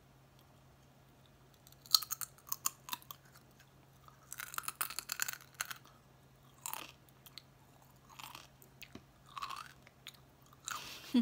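A person biting and chewing a crunchy chip. Sharp crunches come about two seconds in and a dense run of crunching follows around four to five and a half seconds, then softer single chews about every second and a half.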